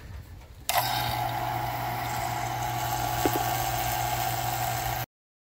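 Two-stage 3 CFM electric vacuum pump running steadily with a low hum and hiss, pulling vacuum on a truck's AC system to evacuate the air. It starts abruptly about a second in and cuts off suddenly shortly before the end.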